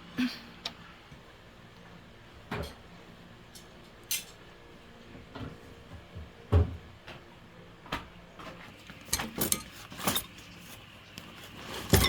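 Scattered short knocks, clunks and clicks, about a dozen in all, with two heavier thuds about six and a half seconds in and near the end: parts and tools being handled while working on a rice milling machine.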